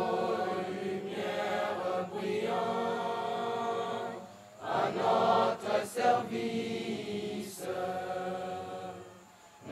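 A group of students singing their school hymn together in long held notes, with short breaks between phrases midway and near the end.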